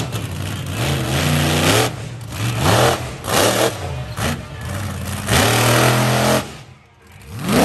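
Monster truck engine revving hard in repeated bursts, its pitch climbing and dropping several times as the truck is driven on the dirt track. About five seconds in comes a long full-throttle pull; then the engine falls away sharply and begins revving again near the end.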